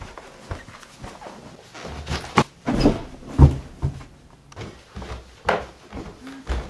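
A series of irregular knocks and thuds in a small room, like cupboard doors or objects being handled, the loudest a couple of seconds in.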